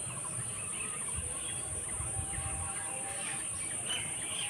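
Steady, high-pitched drone of insects, with scattered short bird calls over it.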